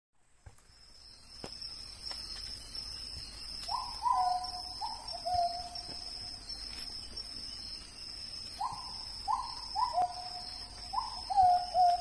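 A bird gives short whistled calls, each note sliding down a little in pitch. They come in a short run about four seconds in and a longer run from about nine seconds on. Under them is a steady, high-pitched drone of insects.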